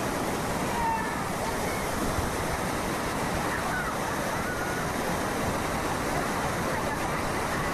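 Kennebec River water rushing steadily, an even wash of moving water with no breaks.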